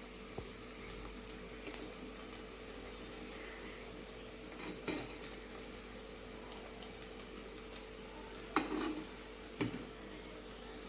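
Chicken pakoda batter deep-frying in hot oil in a pan, a steady sizzle, with a few sharp clinks of a utensil against the pan as more pieces are dropped in.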